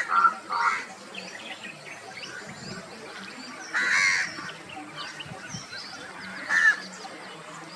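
Birds chirping and calling, with several louder harsh calls: at the start, about four seconds in and near the end.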